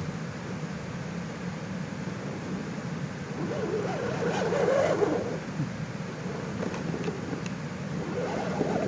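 Small electric motors and gearboxes of scale RC off-road cars whirring as they drive, swelling louder for a couple of seconds around the middle and again near the end.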